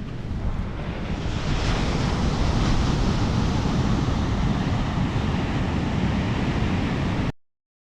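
Steady rush of wind and water aboard a Catalina 25 sailboat under sail, with wind buffeting the microphone. It builds over the first second or so, holds steady, then cuts off abruptly near the end.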